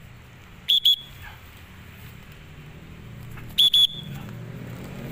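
Short, sharp, high whistle blasts given in pairs, once about a second in and again some three seconds later, calling circling pigeons to come down. A low steady hum runs underneath and grows louder toward the end.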